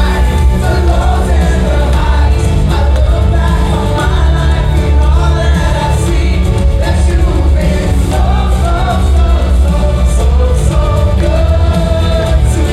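Live worship music: singing over a full band with steady heavy bass.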